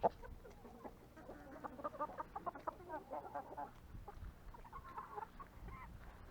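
Chickens clucking, many short calls overlapping from several birds, with a single sharp click right at the start.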